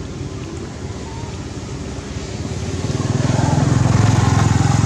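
An engine running with an even, pulsing low hum, growing louder about three seconds in and staying loud.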